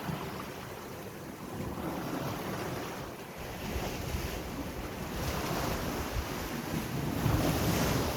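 Sea waves breaking and washing in, the surf swelling and falling back every second or two, loudest near the end. Wind buffets the microphone underneath.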